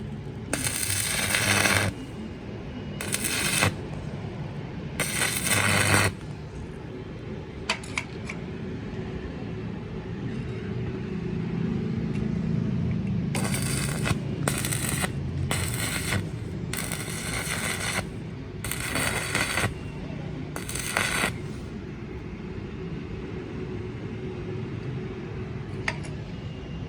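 Bossweld S180 inverter stick welder striking and running short arcs: about nine bursts of crackling arc noise, each half a second to a second and a half long, with a steady low hum between them.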